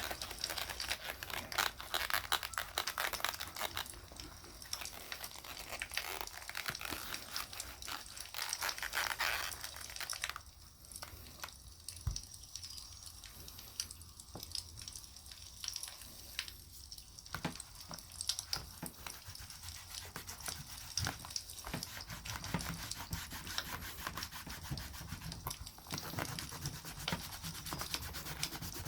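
Beeswax being rubbed into a leather knife sheath, a scratchy rubbing against the leather, with the small pops and crackle of a campfire. The rubbing eases off about ten seconds in, leaving sparser crackles, and picks up again near the end.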